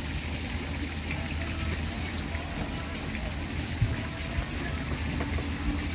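Steady rush of running water with a low hum underneath.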